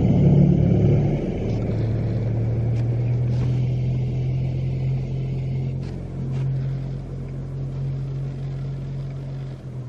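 A steady low engine hum, like a motor vehicle running, which shifts in pitch about a second in and slowly fades toward the end.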